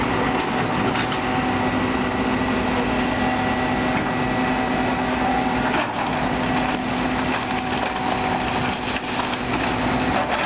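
Excavator engine running steadily while its bucket crunches and splinters the wooden frame and debris of a fire-damaged building, with scattered cracks of breaking wood.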